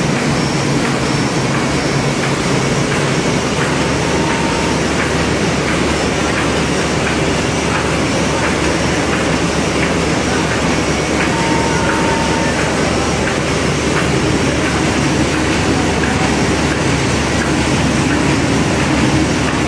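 GS-1080 automatic thermal laminating machine for pre-coated film running: a loud, steady mechanical running noise with faint scattered clicks.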